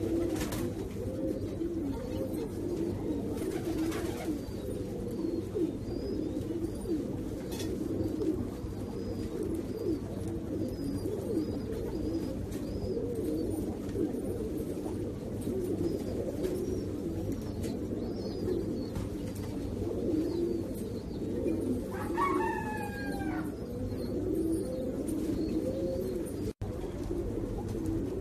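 Pigeons cooing together, a steady overlapping chorus of low, wavering coos, with one brief higher-pitched call about three-quarters of the way through.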